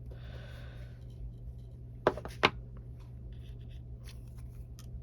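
Craft supplies being handled on a desk: a brief rustle of paper, then two sharp clicks about a third of a second apart, like tools or a stamp being set down, with a few lighter ticks after. A steady low electrical hum runs underneath.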